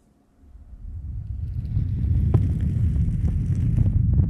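Hands rubbing and brushing right against the microphones of a TASCAM handheld recorder: a low rumbling hiss that swells in after a brief silence, with light skin clicks.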